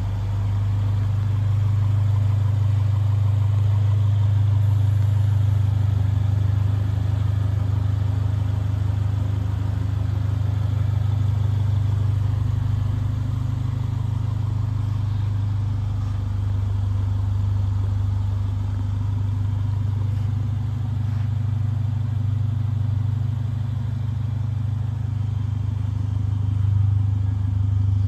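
Steady low drone of a Mercedes-AMG A45's 2.0-litre turbocharged four-cylinder engine idling.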